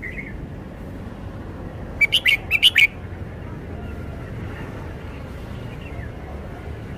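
Red-whiskered bulbul singing one short, quick phrase of five or six sharp notes about two seconds in, over a steady low background rumble.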